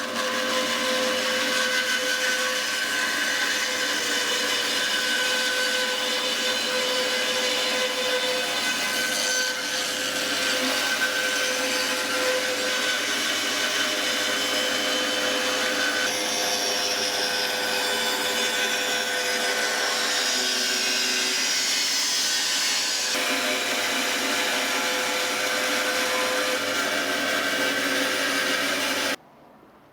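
Bandsaw running and cutting a spalted beech slab: a steady, loud sound with a mix of held whining tones that shift a few times as the cuts go on. It stops abruptly near the end.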